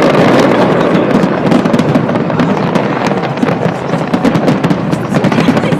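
Large fireworks display going off, a dense, continuous barrage of bangs and crackling with many sharp reports close together.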